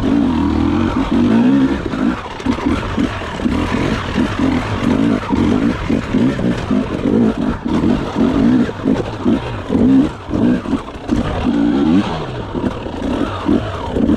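Enduro motorcycle engine heard from on board the bike, the throttle opened and shut over and over so the pitch rises and falls about once or twice a second.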